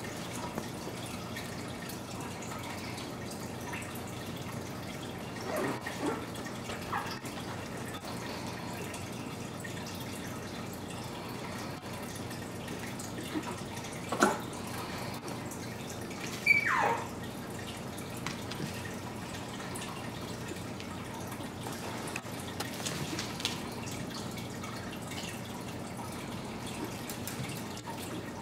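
Shih Tzu puppies at play: a few short, high squeaks and yelps over a steady room hiss. The two loudest come about fourteen and seventeen seconds in, the second a falling yelp.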